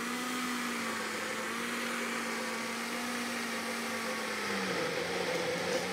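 Electric countertop blender motor running steadily with a constant hum, mixing a thick batter of eggs, milk, butter and flour. Its pitch drops a little about three-quarters of the way through.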